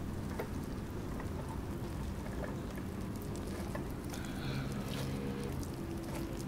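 Clumps of fresh sea grapes (latok) being handled by hand and piled onto a wooden board: a steady wet rustling with many small crackling ticks from the bead-like fronds.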